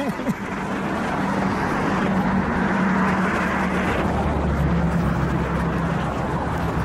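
Motor vehicle running, a steady engine hum with tyre or air noise that builds over the first couple of seconds and then holds.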